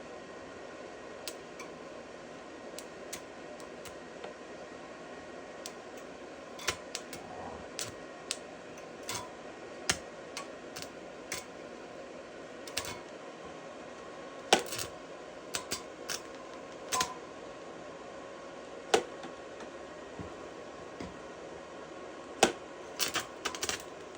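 Cheap Chinese-made welder in use: a steady hum with irregular sharp pops and crackles from the arc. The pops come more often later on, with a few loud single cracks and a quick cluster near the end.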